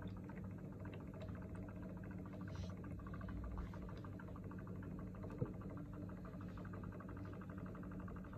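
Low, steady hum with one faint click about five seconds in.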